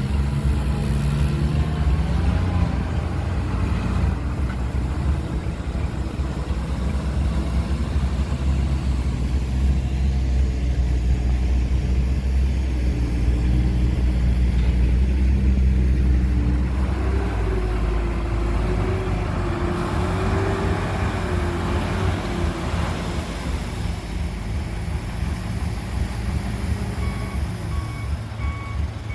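Heavy diesel earthmoving machinery, a bulldozer working alongside dump trucks, running steadily under load, with the engine note rising and wavering for a few seconds past the middle. Near the end a vehicle's reversing alarm starts beeping in an even rhythm.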